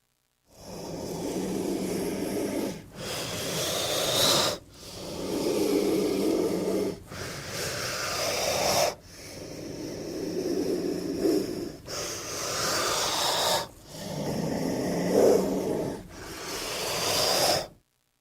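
King cobra hissing: eight long, breathy hisses of about two seconds each, one after another with only brief breaks between them.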